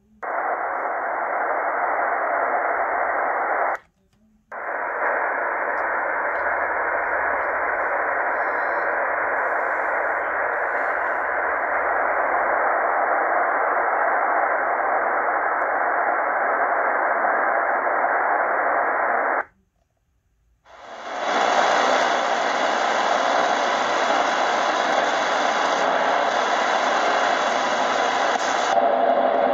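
Tecsun PL-990x shortwave receiver's loudspeaker giving steady 11-meter band hiss in single-sideband mode, cutting out twice for about a second as it is retuned. About 21 s in it comes back in AM mode with a wider, brighter hiss.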